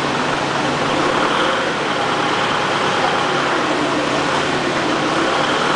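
ACE forklift's engine running steadily while its paper roll clamp arms close around a large paper roll, with a faint high whine coming in about a second in.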